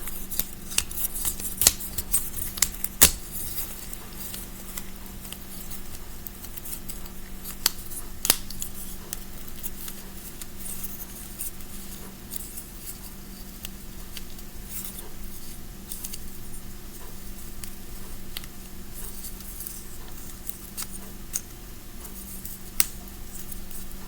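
Irregular sharp plastic clicks and snaps from a fidget snake toy being twisted and handled, thick in the first few seconds and sparser after, over a faint steady hum.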